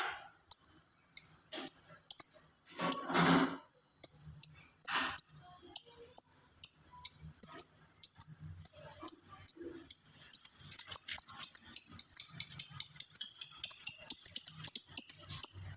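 Labet bird singing: a run of short, high, down-slurred chirps, about two a second at first, quickening into a fast, almost unbroken chatter in the second half.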